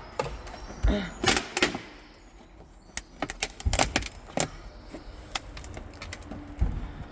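Irregular clicks, knocks and rattles of car interior parts and tools being handled while a BMW E46's interior is taken apart, with a cluster of knocks about a second in and more from about three seconds in.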